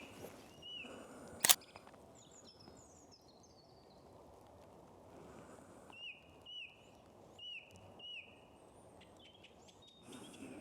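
A song thrush singing, repeating a short hooked whistle in quick runs of several notes. Fainter high chirps from other birds sound early on, and a single sharp click about a second and a half in is the loudest sound.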